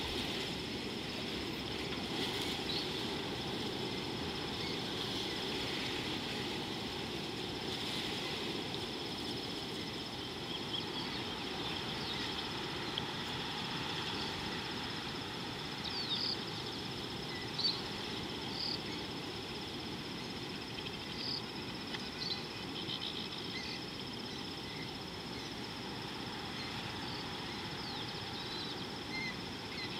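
Outdoor wild ambience: a steady background hiss with a thin, constant high whine, and short bird chirps scattered through it, most of them in the second half.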